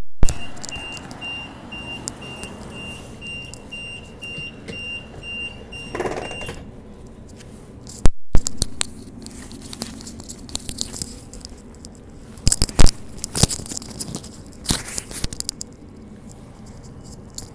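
Door-closing warning on a Bombardier B-series electric train: a high electronic beep repeated in quick even pips, then the sliding doors shut with a rush about six seconds in. After a short break, the train rolls away with a steady rumble and scattered sharp clicks and knocks.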